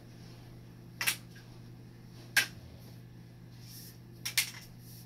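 Hollow PVC pipes and fittings knocking and clacking as they are handled: three sharp knocks, the last a quick double, over a steady low hum.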